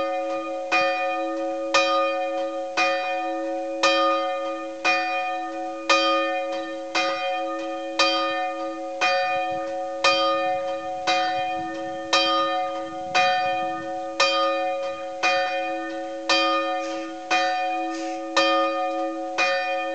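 Church tower bell ringing, about one stroke a second, each stroke leaving a steady ringing hum that carries through to the next.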